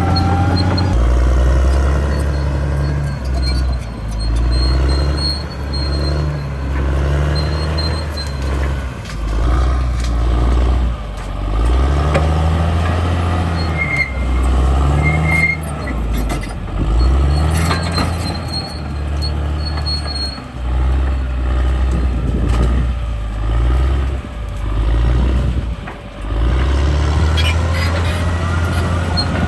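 Caterpillar D6R bulldozer's diesel engine working hard, its pitch repeatedly dropping and rising as it comes under load and recovers.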